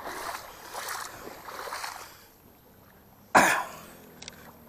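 Rustling and shuffling of people moving down a bank in the dark, then quiet, and a single short, sharp noise about three and a half seconds in.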